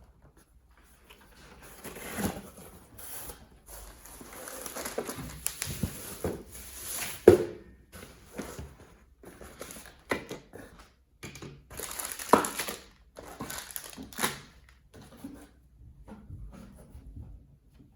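A plastic toy shotgun and its packaging being handled: irregular rustling and crinkling with scattered sharp clicks, the loudest click about seven seconds in.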